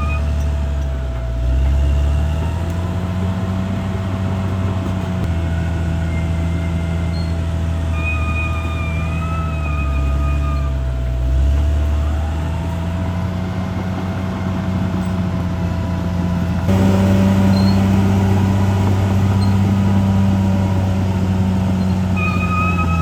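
Caterpillar D6R bulldozer's diesel engine working under load, its pitch sagging and recovering several times as the blade pushes, with a thin wavering whine above it. The sound shifts abruptly about five seconds in and again near the end.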